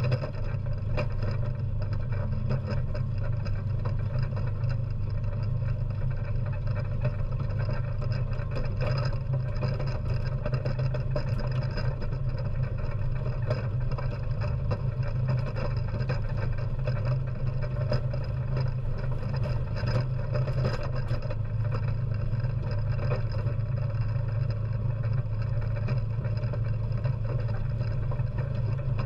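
ATV engine running steadily as it drives over a dirt track, heard from a camera mounted on the front magnetic sweeper; the low hum holds an even pitch with no revving.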